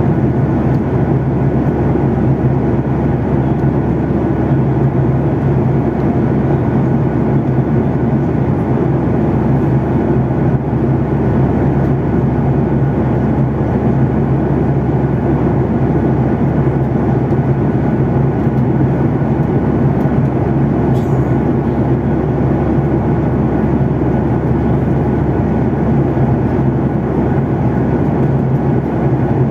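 Jet airliner cabin noise in cruise: a steady, loud low drone of engines and airflow heard from inside the cabin.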